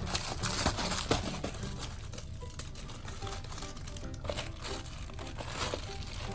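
Crinkling and rustling of crinkly packaging or toy material being handled in the BarkBox, over background music. The crackles come thickest in the first second and again a little past the middle.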